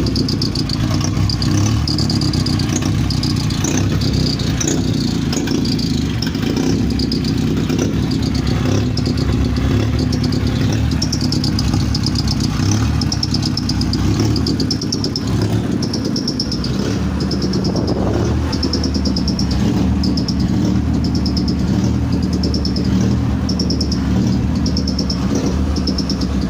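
A 40 kVA generator's engine running steadily. A short high chirp repeats about once a second over it.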